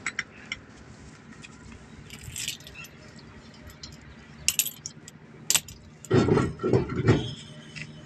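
Loose steel wheel nuts clinking as they are worked off the studs by hand. About six seconds in come several loud, heavy thuds as the truck's wheel and tyre are pulled off the hub.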